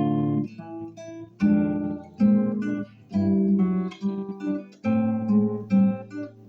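Solo classical guitar playing a piece in chords. Each chord is struck sharply and left to ring and fade, with a new one about every second.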